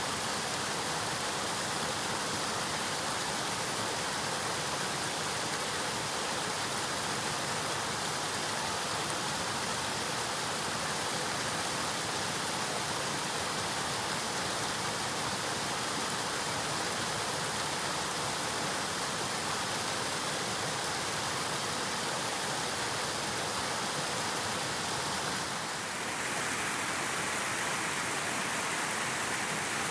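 River water flowing, a steady rushing noise. About 26 seconds in it briefly dips and then runs on with a slightly changed tone.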